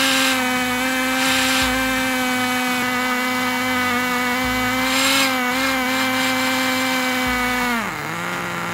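Small two-stroke nitro glow engine from an RC car running at high speed and steady pitch, driving a pencil sharpener's cutter, with several short gritty bursts as a pencil is ground. Near the end its pitch drops sharply and it settles at a lower idle.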